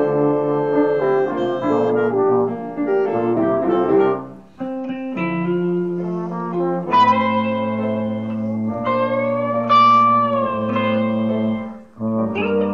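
Instrumental ensemble music. Brass and woodwinds (euphonium, French horn, trombone, clarinet) play held chords for about the first four seconds and then drop out. A hollow-body electric guitar then takes the lead with bent, sliding notes over held low tones, and the ensemble comes back in near the end.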